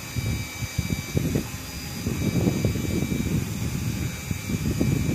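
Electric fishing reel winding in a hooked fish under load: a faint, steady high whine over a low, uneven rumble of wind and boat noise.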